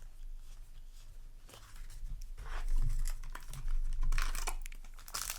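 Foil wrapper of a Yu-Gi-Oh! booster pack crinkling and being torn open, starting about one and a half seconds in, in irregular rustling bursts.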